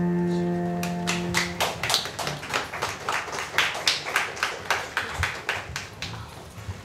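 The final held chord on piano rings out and fades in the first second and a half, then a congregation applauds, the clapping slowly dying down near the end.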